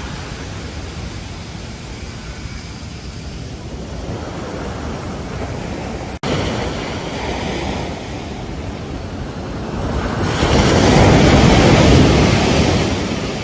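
Pacific surf washing on a beach as a steady rush of water, with a bigger wave surging up about ten seconds in and fading toward the end. The sound breaks off for an instant about six seconds in.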